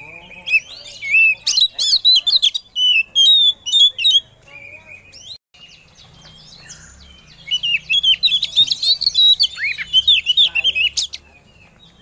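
Oriental magpie-robin (kacer) calling in two bursts of quick, varied high whistles and chirps, the second starting about seven seconds in. It is offered by the uploader as a female calling to a male.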